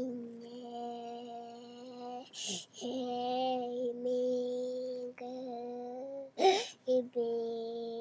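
A young child singing long held notes on nearly one steady pitch, breaking off a few times; two short breathy bursts cut in, the second one louder.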